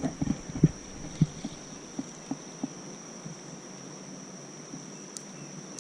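Insects droning with a steady high-pitched tone, with a few soft knocks in the first three seconds.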